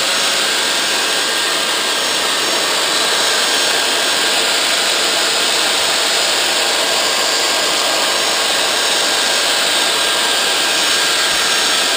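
Small electric belt sander running steadily while a wooden twig is pressed against its belt to round the end, a continuous motor-and-sanding noise.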